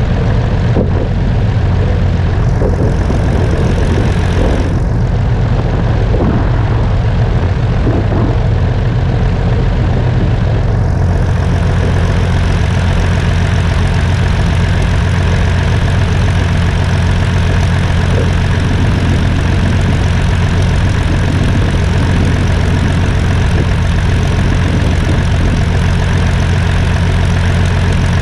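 Fairchild PT-26 trainers' Ranger inverted inline six-cylinder engines idling on the ground, with a steady low hum and propellers turning.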